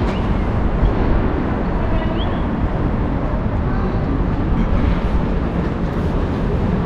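Paris Métro train running, a loud steady rumble with a few faint high squeaks.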